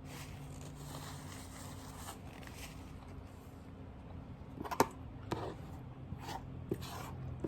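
Quiet eating sounds: faint rustling and scraping, with a few short sharp clicks or smacks in the second half.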